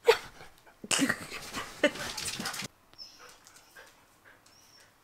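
Border collie barking at the owner: one sharp bark, then a longer, harsher whining vocalisation of about two seconds that stops abruptly, followed by faint small sounds. It is demand barking, urging the owner to hurry.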